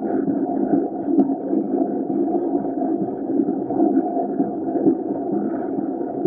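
LSWR O2 0-4-4 tank steam locomotive running along the line, heard from a camera mounted outside on its side: a steady, even noise of the moving engine and its wheels on the rails, mixed with wind on the microphone.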